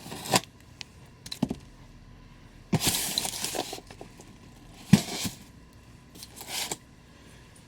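Packaging being torn and scraped in a few rough bursts, the longest lasting about a second around three seconds in, with a sharp knock about five seconds in.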